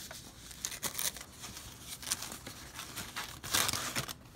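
Thin foam packing sleeve rustling and crinkling as it is handled and slid off a router, with scattered crackles and a louder rustle about three and a half seconds in.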